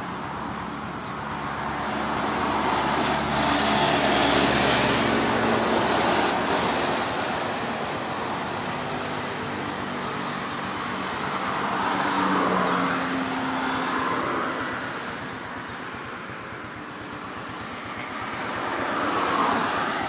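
Road traffic: cars passing one after another on a roadside, the tyre and engine noise swelling and fading as each goes by. Recorded through a budget feature phone's built-in microphone.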